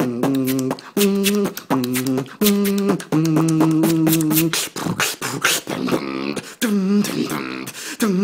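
Solo vocal beatboxing by a young man: sharp mouth-made snare and hi-hat clicks woven with short sung notes that step up and down in a repeating phrase. About three seconds in, one note is held for over a second, then comes a run of faster, noisier percussive sounds before the sung notes return near the end.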